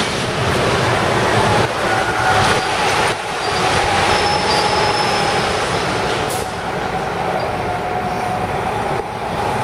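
Loud, steady noise of heavy machinery and street traffic at a building demolition, with a hydraulic excavator working at the concrete structure. A faint high whine wavers through it, and there are a few brief knocks.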